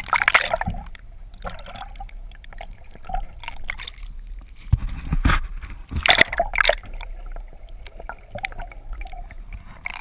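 A camera plunging into the sea and held underwater: loud splashes near the start and again about five to seven seconds in, with muffled underwater gurgling and bubbling between.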